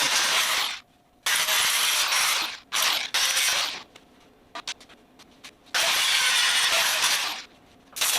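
Power grinder on bare welded sheet steel in four bursts of one to two seconds, with small clicks and knocks in the pauses between. It is taking rough and sharp edges off the metal so that primer will stick.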